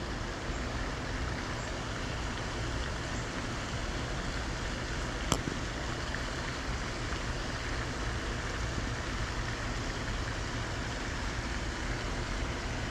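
Steady outdoor background noise, an even hiss with nothing pitched in it, and one sharp click about five seconds in.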